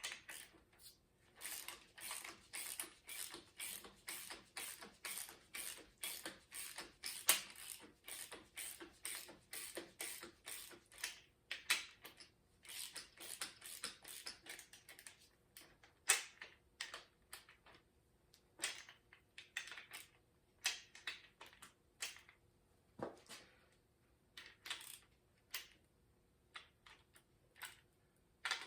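Ratchet wrench clicking in repeated short strokes, about two a second for the first half, then slower and more spaced out.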